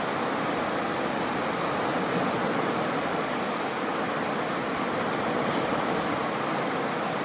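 Small ocean waves washing on a sandy beach: a steady, even rush of surf with no single breaker standing out.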